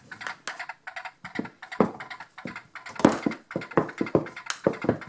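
Electronic galloping hoofbeat sound effect from a Toy Story Bullseye horse toy's speaker, set off by pressing its ear: a run of uneven clip-clop knocks, a few each second.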